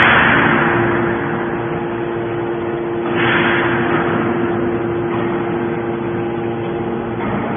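Hydraulic scrap-metal baler running with a steady hum, with two rushing swells of noise that fade over about a second, one at the very start and another about three seconds in.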